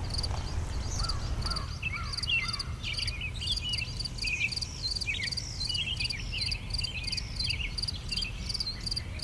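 Birds chirping and calling with many short rising and falling notes, over a steady, evenly repeating high-pitched chirp, with a low rumble underneath.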